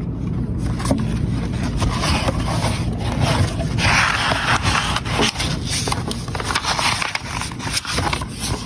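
Close rustling and scraping handling noise, with many small clicks and knocks throughout.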